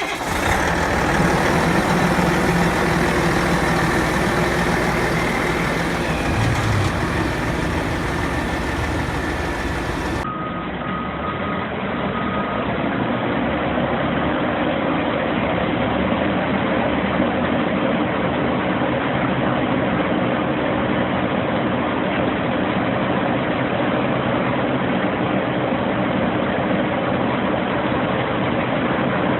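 Diesel engine of a Vermeer HG6000 horizontal grinder running steadily just after a start.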